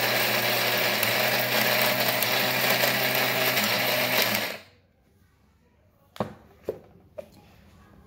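24 V DC battery-powered mixer grinder running at speed with its steel jar grinding a dry material to powder, a steady motor whine with blade noise, switched off about four and a half seconds in and quickly spinning down. Then three short knocks follow, half a second apart, as the jar is handled on the base.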